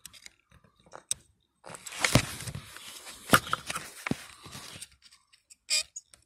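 A steel pick scraping and clicking in the oil pressure sensor port of the engine block, prying at the oil screen: a few scattered clicks, then about three seconds of scraping with three sharp clicks, and one short scrape near the end.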